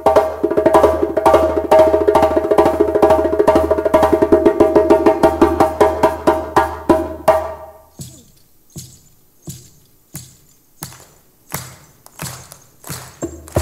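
Djembe struck with bare hands in a fast, dense solo run that stops about seven seconds in. Then comes a slow, steady beat of single sharp hand claps, a little more than one a second.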